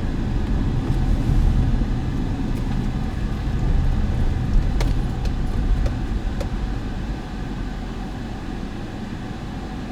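Car road noise heard inside the cabin, a steady low rumble of engine and tyres that eases off after about six seconds as the car slows to pull off the road. A few light clicks come around the middle.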